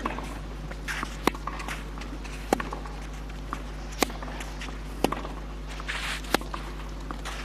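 Tennis rally on a clay court: a sharp pock of racquet on ball about every second and a quarter as the players trade groundstrokes from the baseline.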